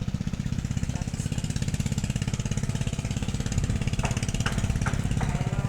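An engine idling steadily with a rapid, even low throbbing, with four short sharp taps or clicks near the end.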